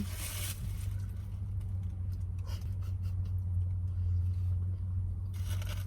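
A car running, heard as a steady low rumble with only a few faint ticks above it.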